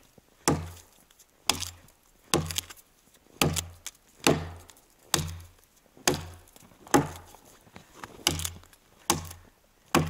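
Forged Burunduk axe chopping into the base of a standing tree trunk to fell it: a steady run of about eleven single strokes, roughly one a second, each a knock of the blade biting into wood.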